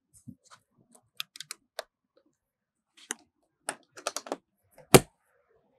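Latches on a camper's side hatch being clicked shut by hand: a string of short sharp clicks, then one loud knock about five seconds in.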